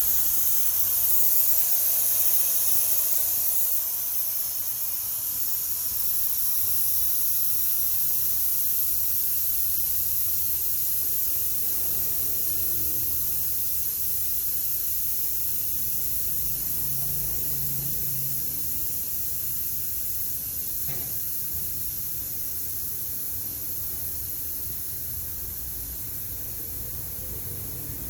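Air hissing out of the Daelim Neoporte 125 scooter's rear tyre through its valve as the tyre is deflated: a steady high hiss that slowly fades as the pressure drops.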